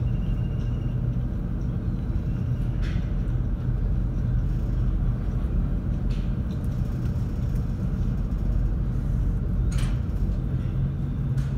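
Steady low drone of a car ferry's engines heard from inside the passenger cabin, with a few faint knocks.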